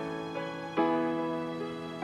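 Slow, soft instrumental music: sustained chords, with a new chord struck just under a second in.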